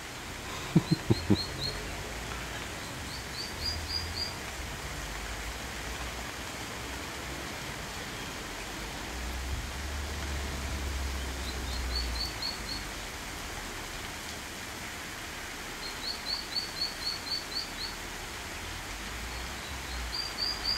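Ducklings peeping in short rapid runs of high chirps, several runs spread through, the longest near the end. A few dull thumps about a second in are the loudest sounds, over a steady outdoor hiss.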